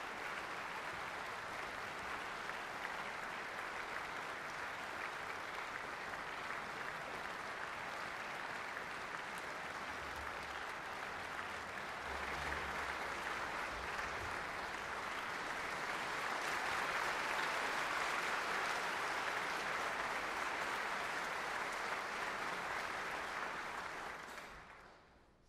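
Audience applauding the conductor before the symphony begins. The clapping grows louder past the middle and dies away just before the end.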